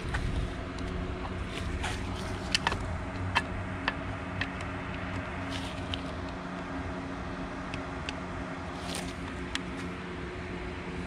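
A few sharp metallic clicks and taps as the poppet valve spring and cover are handled and pressed onto an outboard's powerhead, the loudest a few seconds in, over a steady background hum.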